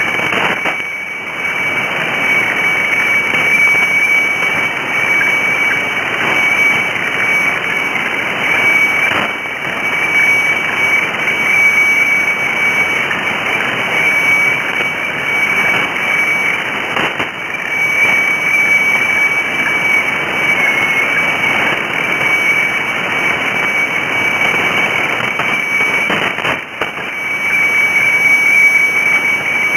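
Shortwave radio receiving the HSW64 Bangkok meteorological radiofax on 7395 kHz: one steady high tone from the fax signal over loud hiss and static, dipping briefly in a few short fades.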